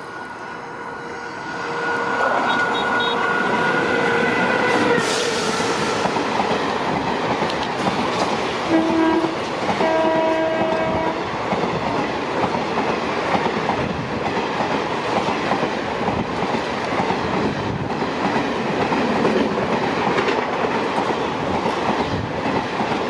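Express train behind a WAP-4 electric locomotive passing at speed. A long horn blast sounds as it approaches, and the locomotive rushes past about five seconds in. Two short horn blasts follow, then the steady rumble and clickety-clack of the coaches running by.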